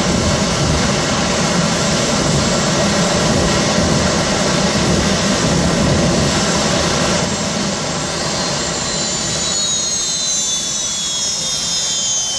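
Green Mamba jet car's jet engine running with a loud, steady rush. About seven seconds in it is shut off and spools down, a whine that falls in pitch.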